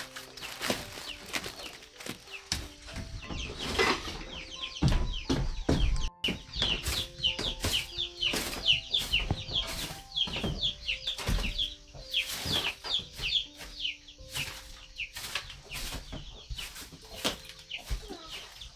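A flock of chickens clucking and cheeping, with rapid, short, high falling peeps through most of the stretch and a few wing flaps, over soft background music.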